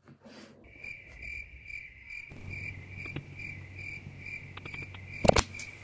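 High-pitched electronic phone tone beeping steadily about twice a second, on an incoming call being answered. A sharp click about five seconds in.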